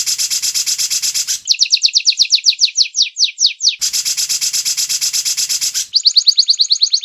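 Edited white-rumped shama song playing as a repeating loop: a dense, evenly pulsed harsh rattle alternates with a fast run of down-slurred whistled notes that slow and drop in pitch toward the end of each run. The rattle comes twice, with the whistled run between.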